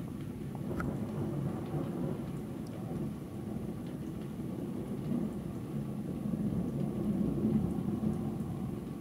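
Low, continuous rumbling of thunder, swelling from about five to eight seconds in, with a few faint ticks of raindrops.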